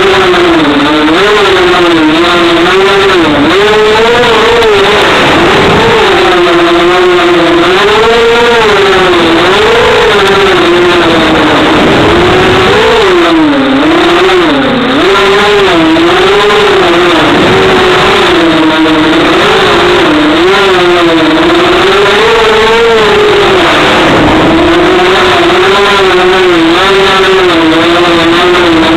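FPV racing quadcopter's brushless motors whining loudly and without a break, the pitch rising and falling every second or two as the throttle changes.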